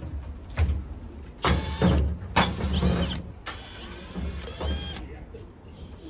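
An LG top-loading washing machine's cabinet being shifted and turned on its wooden base: a run of thuds and scrapes, heaviest between about one and a half and three seconds in, then a few lighter knocks.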